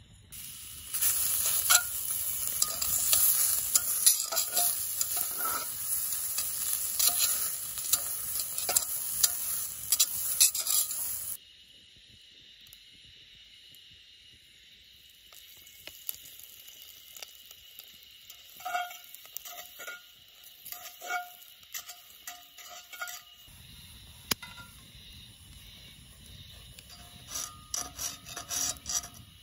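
Cast-iron Dutch oven over a campfire: loud sizzling and scraping for about ten seconds that stops abruptly. After a short lull come scattered light metallic clinks of tongs and contents against the cast iron.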